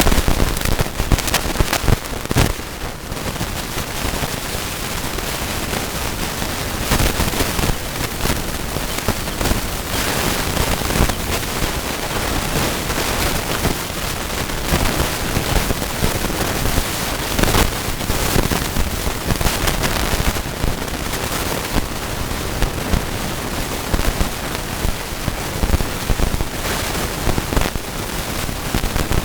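Chickens pecking at feed, a dense, irregular crackle of many quick clicks with a few sharper strikes.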